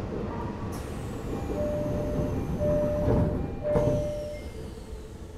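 Door-closing sequence aboard an Odakyu 1000 series train: three short electronic warning beeps at one steady pitch, a sudden hiss about a second in, and the doors thudding shut with another hiss near four seconds, over the low hum of the standing train.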